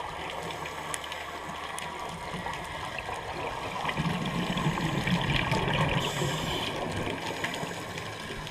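Muffled underwater noise of a scuba dive, recorded through the camera's waterproof housing. A steady watery hiss with faint scattered clicks swells louder about four seconds in and eases off again after about two and a half seconds.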